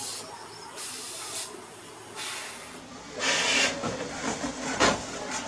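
Air hissing out of a deflating balloon in short spurts, then a louder rush of air about three seconds in, with a sharp knock near the end.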